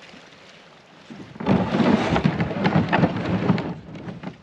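Kayak hull scraping and grinding along the shore as it is pushed into the water, a rough grating rumble that starts about a second and a half in and lasts about two seconds.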